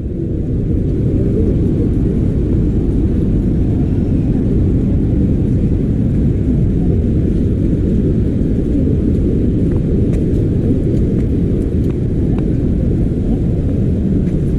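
Steady, loud low roar of the Athirappilly waterfall's falling water.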